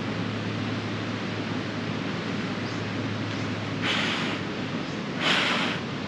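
A high, fast-flowing river rushes steadily. A faint low hum stops about four seconds in, and two short hisses follow about a second apart near the end, the second the louder.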